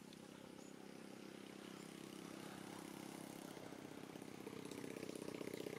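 A small engine running steadily with an even, rapid pulse, faint at first and getting louder near the end.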